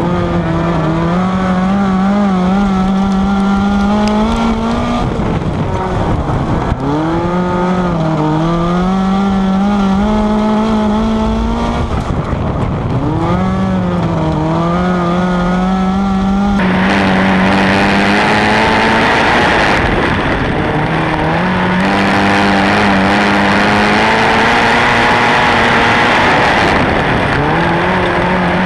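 Onboard sound of a Ford Focus midget race car's four-cylinder engine running hard on a dirt oval, its pitch dipping as the driver lifts into each turn and climbing again on the throttle out of it. A bit over halfway a louder rushing hiss joins the engine.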